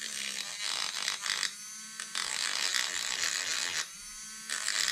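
Small pen-style rotary tool running with a steady high whine, its abrasive bit grinding against the camera body in three stretches, with two short breaks, about a second and a half in and near four seconds in, where only the motor is heard.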